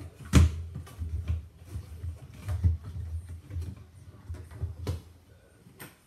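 Hands working at a front-loading washing machine's door opening, where the rubber door seal's clamping ring is being taken off: a sharp knock about half a second in, then scattered knocks, scrapes and low thumps, and a click near the end.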